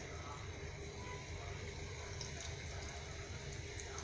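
Chicken-and-potato roll kababs deep-frying in hot oil in a kadhai: a steady sizzle of bubbling oil with occasional small crackles.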